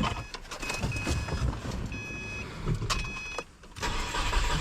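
Electronic warning chime inside a 2010 Subaru WRX beeping four short times now that the battery has power, among clicks and knocks. A steady rushing noise starts near the end.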